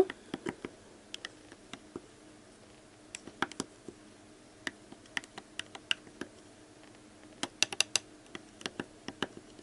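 Plastic spoon stirring liquid slime mix in a small plastic cup, clicking and scraping against the cup's sides: light irregular clicks, some in quick clusters.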